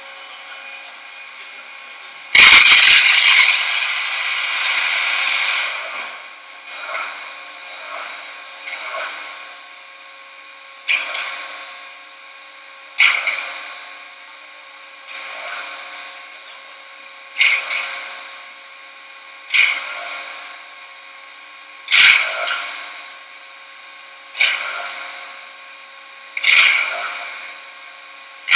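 Flash butt welding machine joining two steel pieces: a loud crackling burst about two and a half seconds in that lasts about three seconds, then short sharp flashes of arcing about every two seconds as the steel ends touch, throwing small showers of sparks, over a faint steady electrical hum. The repeated short flashes are the preheating stage that comes before continuous flashing.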